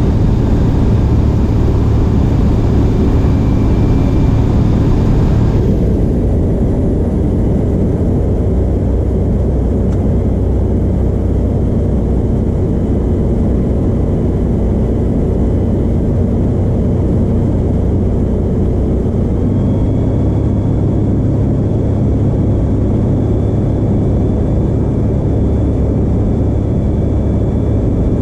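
Rotax 912 flat-four engine and propeller of a Skyranger microlight running steadily on the approach to land, heard from inside the cockpit with wind rush. The higher hiss drops off about six seconds in.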